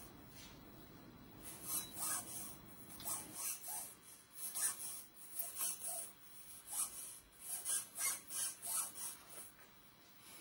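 Irregular short scratchy rubs and clicks of plastic model parts being handled, one or two a second through most of the stretch, quieter near the start and the end.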